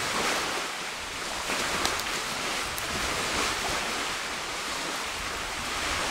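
Steady outdoor rushing noise of wind, with a few faint clicks about one and a half to three seconds in.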